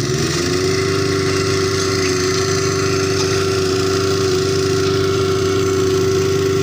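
A small engine running at a steady high speed, rising slightly in pitch as it comes up to speed and then holding an even tone before stopping abruptly.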